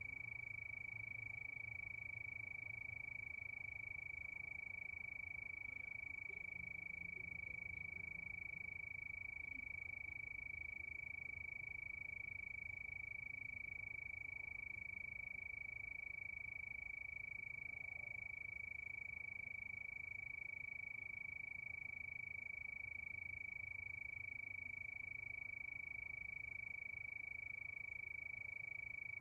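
Night chorus of crickets trilling, a steady, unbroken high-pitched tone with a faint low rumble underneath.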